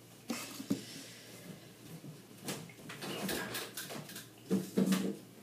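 Scattered light knocks and clicks of kitchen things being handled and set down.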